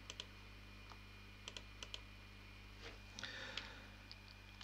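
Faint, scattered keystrokes and mouse clicks on a computer keyboard and mouse, a few single clicks spread through and a quicker little run near the end, over a low steady hum.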